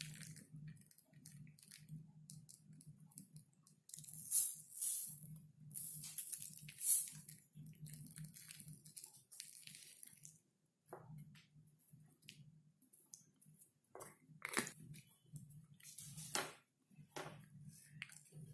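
Tiny craft deco stones shaken from a small plastic bottle and pressed onto a brush handle by fingertips: scattered faint crunches and rustles, with a few louder ones, over a steady low hum.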